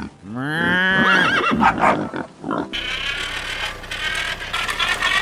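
A horse whinnying: one call of about two seconds that rises in pitch and then wavers. A steady busy background sound follows.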